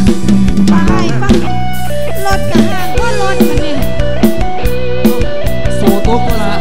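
Live band of a Thai mor lam troupe playing: an electric guitar melody over a drum kit and heavy bass, with a steady beat.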